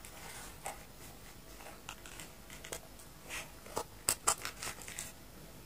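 Plastic packet crinkling and rustling as it is handled, in a string of short crackles that bunch up and are loudest about four seconds in.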